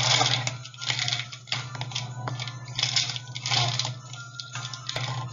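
Irregular rustling and crinkling from small toys and packaging being handled, over a steady low hum.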